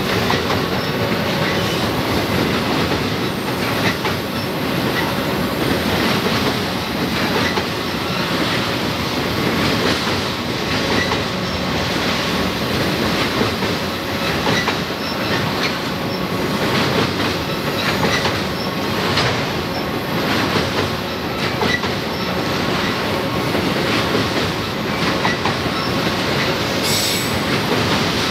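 Long freight train of autorack cars rolling across a trestle bridge: a steady rumble of steel wheels on rail with a rhythmic clickety-clack over the rail joints.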